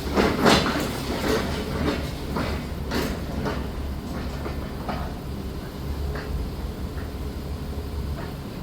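Heavy demolition machinery running with a steady low rumble, with irregular metal clanks and knocks of debris being broken and moved; the loudest knocks come about half a second in and about three seconds in.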